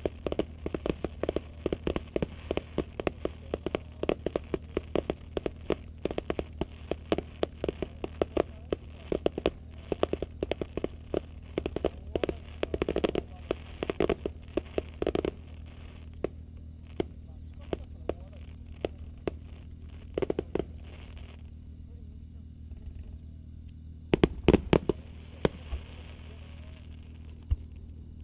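Aerial fireworks heard from about 800 m away, a rapid barrage of sharp pops and reports. The barrage thins to scattered bursts after about fifteen seconds, and a short cluster of louder bangs comes near the end.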